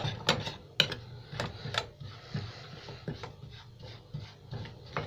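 Metal spoon stirring dry powdered milk in a stainless steel saucepan as it toasts, scraping the bottom with irregular clicks where it knocks the pan's side.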